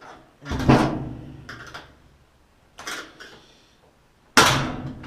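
Screwdriver prying at the washing machine cabinet's retaining clips: a few clanks and scrapes of metal against the sheet-metal cabinet, with two loud ones about half a second in and near the end.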